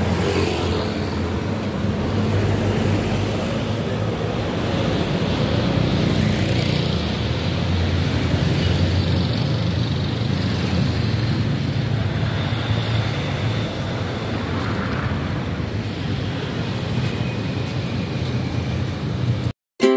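Street traffic, with cars and motorcycles passing close by as a steady low rumble. It cuts off abruptly just before the end.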